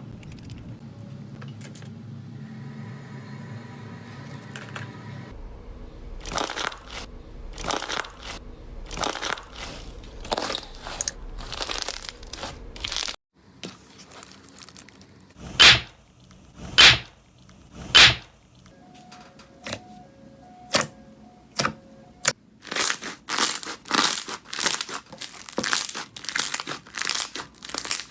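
Slime being squeezed and pressed by hand, giving crackling, crunching pops in irregular bursts. There are three loud separate crunches in the middle and a fast run of crackles near the end.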